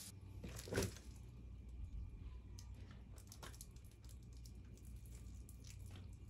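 Faint handling and tearing noises from a rabbit being skinned by hand, with a few sharp clicks, the loudest about a second in, over a low steady rumble.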